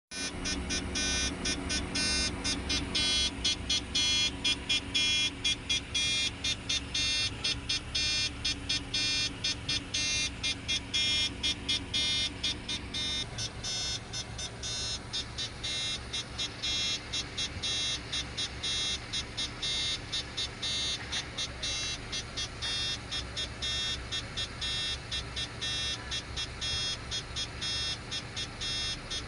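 A working crane giving off a strange high-pitched, rapidly pulsing sound, about three pulses a second, over the machine running; a lower hum underneath stops about 13 seconds in.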